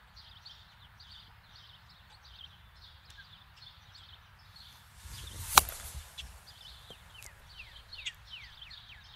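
Golf club striking the ball on a chip shot: one sharp click about five and a half seconds in, just after a short rush of the swing through the grass.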